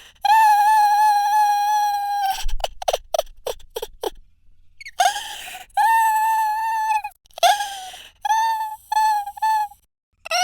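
Exaggerated, comedic male crying sound effect: long high-pitched wails broken by a run of short gasping sobs, then a string of short wailing sobs near the end.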